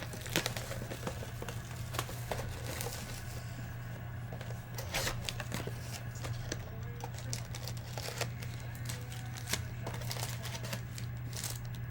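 Trading-card boxes and foil packs being handled and opened: scattered rustling, crinkling and light clicks over a steady low hum.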